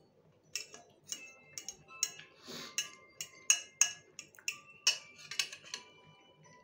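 A metal fork clinking and tapping against a glass plate about every half second, some strikes ringing briefly, as food is picked up from it.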